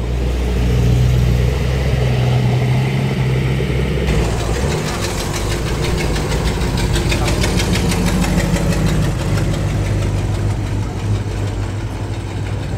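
A car engine running at low speed, steady throughout. About four to five seconds in its note shifts and a fast, even pulsing comes in.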